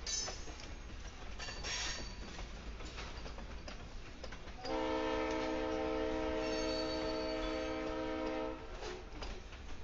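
Diesel locomotive air horn sounding one long blast of about four seconds, several notes together, over the rumble of freight cars rolling past with a few clanks near the start.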